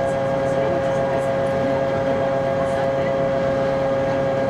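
Steady machinery drone of a car ferry, heard inside its passenger cabin: a low rumble with a constant hum tone.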